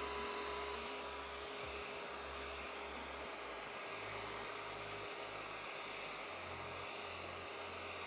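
Hoover ONEPWR cordless wet/dry vacuum running as a blower, air forced out of its exhaust port through the hose and utility nozzle: a steady rush of air over a constant motor tone.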